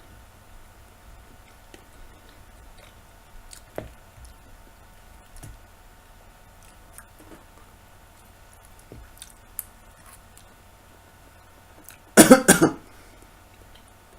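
Faint chewing clicks as a man eats a mouthful of fried button mushrooms, then, about twelve seconds in, a short loud fit of three or four quick coughs.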